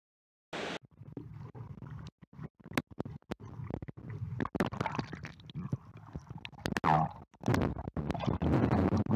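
Air blown out underwater by a swimmer, heard through a submerged camera microphone: bubbling and gurgling with many scattered clicks and knocks, louder over the last two seconds.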